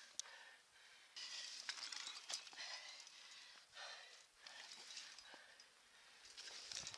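A rock climber breathing hard in uneven puffs while pulling up the rock, with scattered small clicks and scrapes of hands and gear against the stone.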